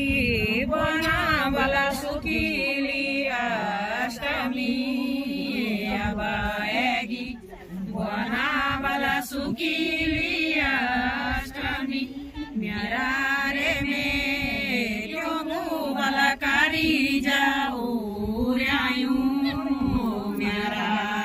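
A group of women singing a Garhwali devotional folk song together, in long wavering phrases with short breaks between lines.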